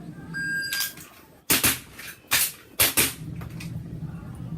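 A shot timer's start beep, then a rapid string of sharp airsoft pistol shots over about a second and a half, the last coming about 2.7 s after the beep: one timed run of the Four Aces drill, two shots, a reload, and two more.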